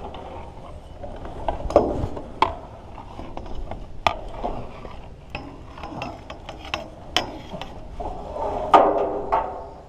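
Irregular mechanical clicks and knocks, a handful of them sharper and louder than the rest.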